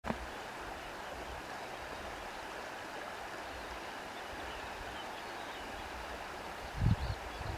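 Steady rushing of running water, like a stream, with a short low thump near the end.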